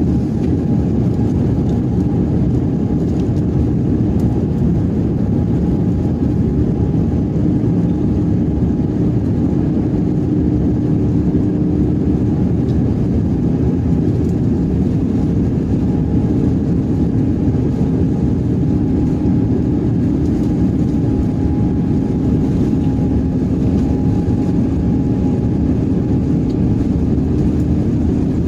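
Steady cabin noise of a passenger airplane heard from inside: a constant low rumble of engines and rushing air with a faint steady hum on top.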